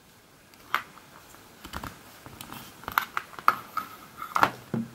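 Small plastic clicks and taps as the ammunition belt of a vintage Action Man M60 toy machine gun is handled against the gun and put down on the table; irregular, with a handful of sharper clicks in the second half.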